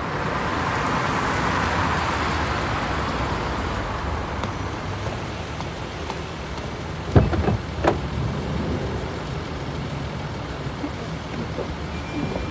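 Nissan minivan's tyres hissing on a wet road as it pulls over. The hiss is loudest in the first couple of seconds, then fades to a low steady rumble. About seven seconds in come two sharp thuds less than a second apart, from the car's doors.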